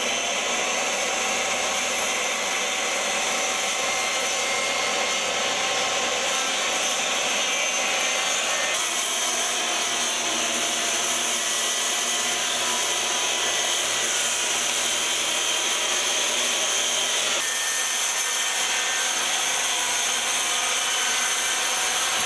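Corded circular saw running steadily while cutting through exterior lap siding along a marked line. Its pitch shifts slightly about 9 seconds in and again around 17 seconds in.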